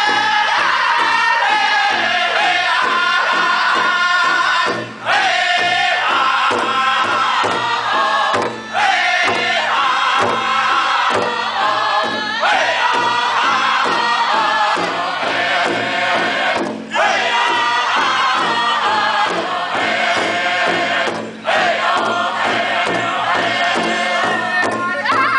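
Powwow drum group of men singing together in Northern style, high and loud, over steady unison beats on a large shared drum. The singing breaks off briefly four times.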